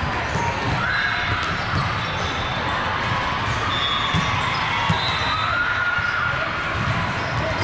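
Hubbub of distant voices with frequent irregular dull thuds.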